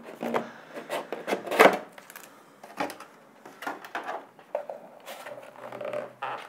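Hands pulling a white moulded insert tray out of a cardboard box and handling the box: a string of irregular knocks, scrapes and rubs, the loudest about one and a half seconds in.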